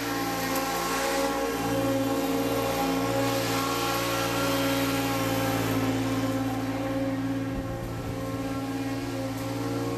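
Engine of a 2018 Encore Rage 32-inch stand-on zero-turn mower running at a steady speed as the mower drives past. It grows louder as it approaches, then fades a little after about six seconds as it moves away.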